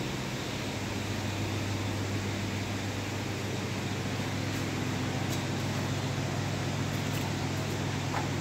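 Table-mounted belt conveyor with a green belt running: a steady low motor hum under an even hiss, with a few faint ticks in the second half.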